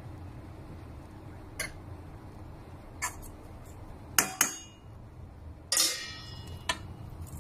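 Metal spoon clinking against a stainless steel mixing bowl: about half a dozen separate knocks, the loudest near the end ringing on briefly.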